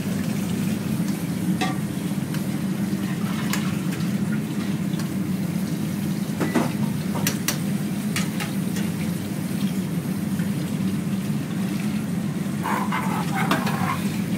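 Coconut-milk soup bubbling and sizzling in a wok over a gas burner, over a steady low hum, with a few light utensil clicks in the first half.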